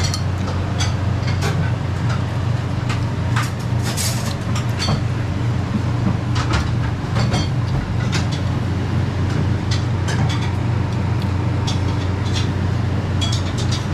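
A steady low hum of restaurant background noise, with scattered light clicks and clinks of utensils against a ramen bowl.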